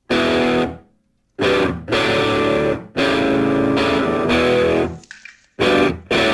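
Music: distorted electric guitar chords in stop-start phrases, each cutting off sharply before a brief silence.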